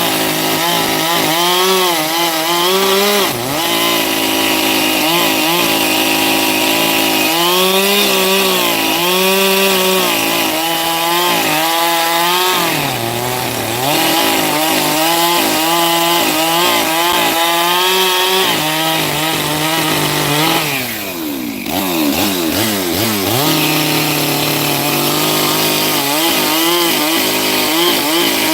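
Chainsaw cutting firewood, its engine pitch repeatedly rising and dipping as it works through the wood. About two-thirds of the way through, the pitch falls away, then picks up again.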